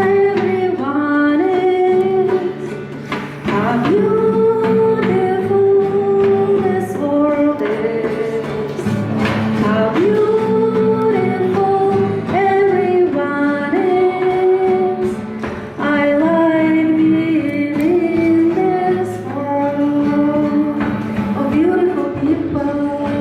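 A woman singing a slow song in English, each note held and bending, over a steady instrumental accompaniment, with a few sharp percussive taps along the way.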